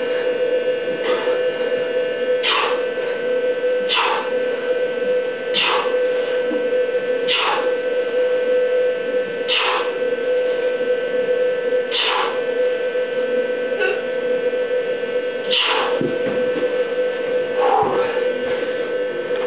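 Short forceful exhaled breaths, one with each one-armed pull-up rep, about ten of them, coming further apart later on, over a steady electrical hum.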